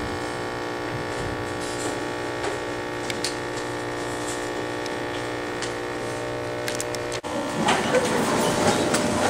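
Steady electrical hum and buzz made of many fixed tones, with a few faint clicks. It cuts out for an instant about seven seconds in, and a rougher, noisier sound takes over.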